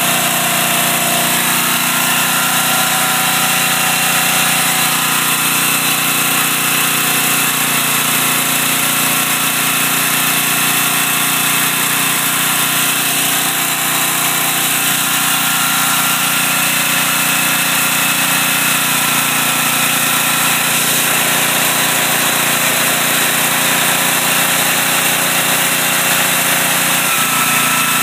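Portable generator engine running steadily under heavy load from two electric heaters and an air conditioner. Its pitch dips slightly near the end.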